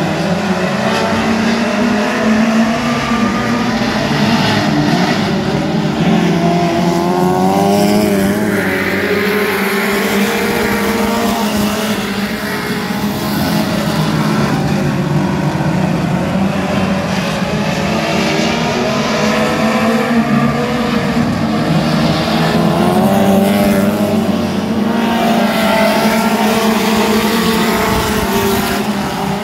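A field of mini stock race cars' four-cylinder engines running together, several at once, revving up and down as the cars go around the track.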